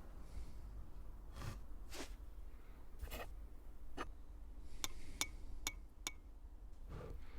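A series of light clinks and scrapes, a second or so apart. About five seconds in come four quick, sharp clinks, each with a short ring.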